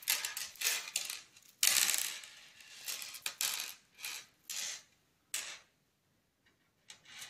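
Faceted crystal beads clicking and rattling against each other as they are picked up and threaded onto crochet thread: an irregular run of short clicks, with a quiet gap about five and a half seconds in.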